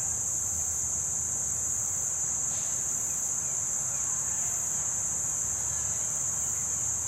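Insects in a steady chorus, one even high-pitched drone that never breaks, over a low rumble.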